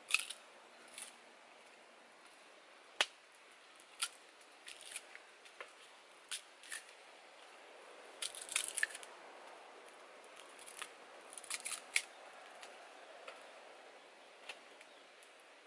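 Sugar cane being bitten and chewed, with sharp crunching cracks of the fibrous stalk tearing between the teeth, coming singly and in quick clusters, over a faint steady hiss.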